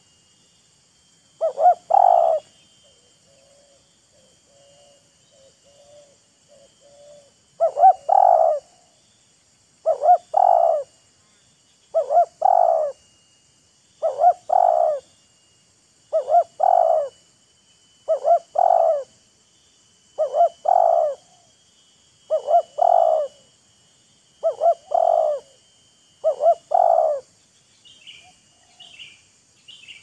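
Spotted dove cooing: a short phrase of a few notes, repeated eleven times, about every two seconds after a longer pause. In that pause come softer, lower coos. It is the calling exchange between a decoy and a wild spotted dove.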